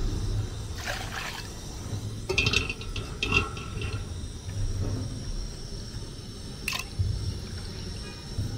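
Water sloshing and splashing in a plastic bowl as locust beans are washed and swirled by hand to settle out stones, in short bursts about a second in and again from two to three and a half seconds in, with a sharp click near the end.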